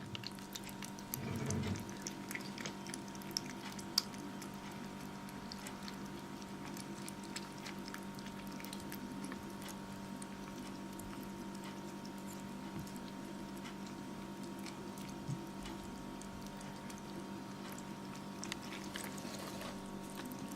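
Kittens eating: faint, scattered small clicks of chewing over a steady electrical hum, with one sharp click about 4 seconds in.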